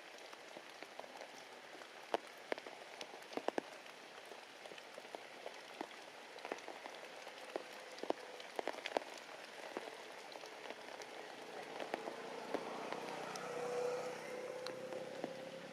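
Heavy rain falling, with many sharp individual drops striking close by. In the second half, a faint steady hum comes in, rising slightly in pitch and growing louder near the end.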